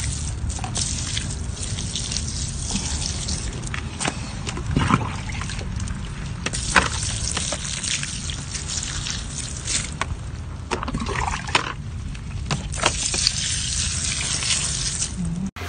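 Water pouring from a plastic jug onto potted pansies, splashing steadily on the leaves and soil, with a few light knocks; it cuts off suddenly near the end.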